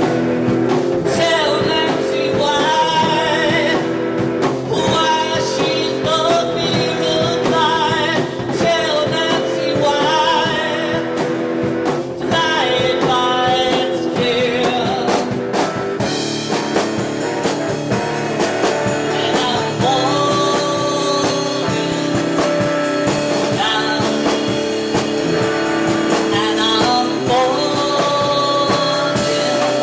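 Live rock band playing: electric guitar and drum kit with a man singing lead through a microphone, the vocal line coming in about a second in and running on over the band.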